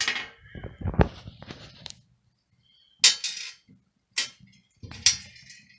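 Small metal regulator parts being set down and handled on a washing machine's enamelled steel lid: about six sharp clicks and light clinks, roughly a second apart, the loudest about three seconds in.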